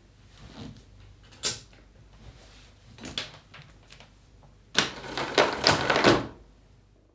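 Vacuum cleaner being handled with its motor off: plastic parts click and knock, a sharp click about a second and a half in, then a longer burst of clattering near the end.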